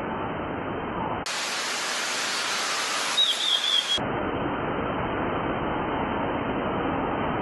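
Steady hiss of noise. About a second in, a brighter, wider hiss cuts in, with a short warbling chirp near its end, and it cuts off suddenly about three seconds later.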